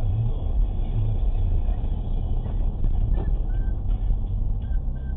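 Steady low rumble of a car on the move: engine and road noise as picked up by a dash cam's microphone.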